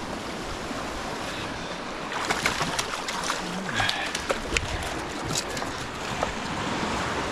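Ocean surf washing steadily, with wind on the microphone, and a scatter of short clicks and knocks about two to six seconds in.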